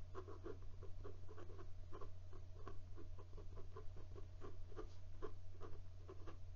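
Steel Omniflex fountain pen nib writing letters and numbers on smooth 90 gsm paper: a quick run of short scratching strokes, several a second. The nib is very scratchy, carving into the paper as it writes.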